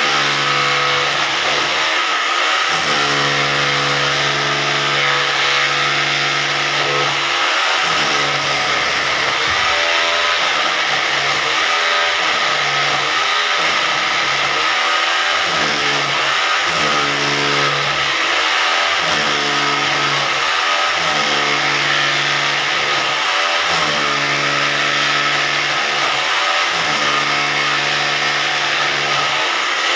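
Hammer drill running under load: its motor hum sags and recovers every second or two over a steady, loud hammering noise.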